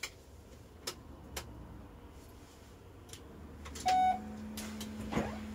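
A few sharp switch clicks, then about four seconds in a short electronic beep from the coach's electrics as the ignition is switched on, followed by a steady low electrical hum.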